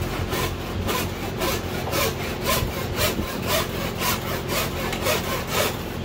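Windshield removal wire sawing back and forth through the urethane bead holding a 1991 Honda CRX Si's windshield, an even scraping rhythm of about two strokes a second.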